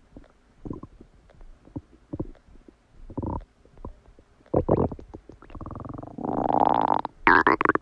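Human stomach and intestines gurgling while digesting a meal. Small scattered pops and gurgles give way, about halfway through, to louder gurgling. This leads into a long, drawn-out pitched growl lasting about a second and a half, followed by a loud gurgle near the end.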